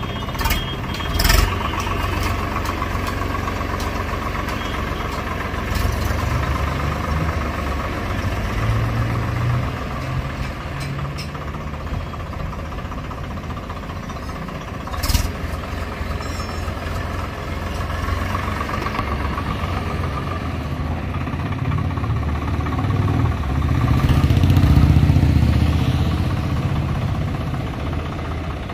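Swaraj 855 FE tractor's three-cylinder diesel engine running steadily while the tractor drives along in first gear. A few sharp knocks come through near the start and again about halfway. The engine gets louder for a couple of seconds near the end.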